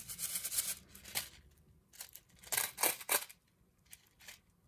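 Loose sequins rattling and rustling inside a sequin-filled shaker panel of pink glitter cardstock as it is shaken and handled to shift the sequins, in short irregular bursts.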